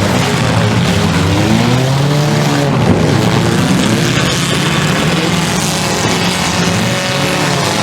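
Several demolition derby cars' engines revving hard at once, their pitches rising and falling as they race, over a continuous loud mix of engine and track noise.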